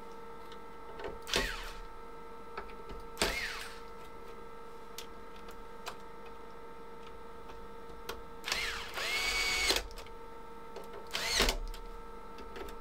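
Power screwdriver driving screws into an oscilloscope's metal chassis in several short runs, the motor whine rising each time it starts, with one longer run about eight and a half seconds in that settles to a steady whine.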